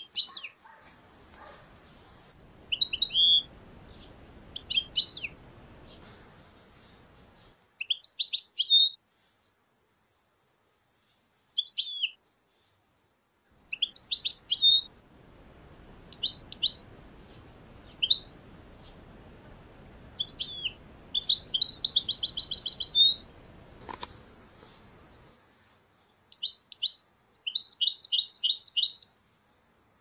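European goldfinches twittering: short bursts of high, quick chirps separated by pauses, with faster trilled runs near the end.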